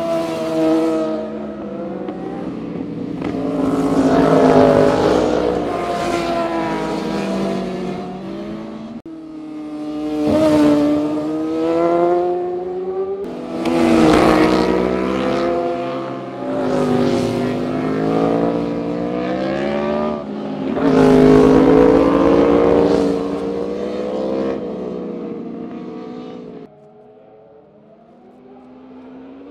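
Sport motorcycles passing one after another through canyon curves, their engines revving up and down in pitch as the riders roll off and open the throttle. Several separate passes follow each other with abrupt changes between them, and the sound is quieter near the end.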